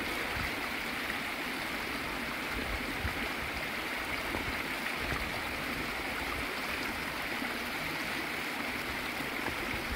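Stream water rushing steadily, an even unbroken noise.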